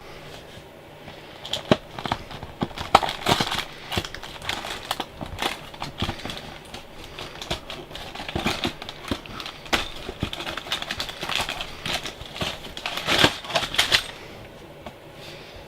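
A small cardboard LEGO set box being opened and its contents handled: irregular crinkling, rustling and small knocks of cardboard and plastic bags of pieces.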